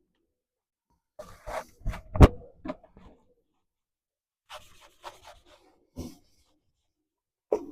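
Scattered knocks and clatter of metal parts and hand tools being handled, with one sharp knock about two seconds in and another near the end.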